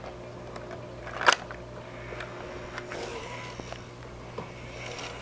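Handling of an 8mm camcorder and its tape cassette: one sharp click about a second in, then a few faint clicks over a steady low hum.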